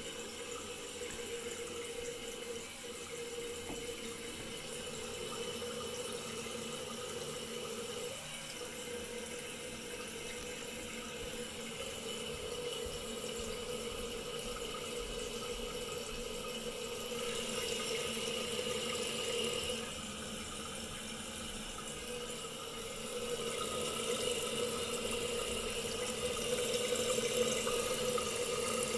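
Eljer Emblem toilet tank refilling after a flush: water hissing steadily through the open fill valve, with a faint whistling tone, growing a little louder twice toward the end.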